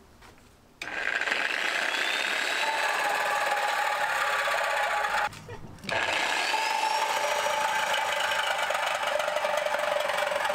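Cordless reciprocating saw cutting through a metal car exhaust tailpipe, a loud steady sawing buzz. It starts about a second in, stops for a moment about five seconds in, then starts again.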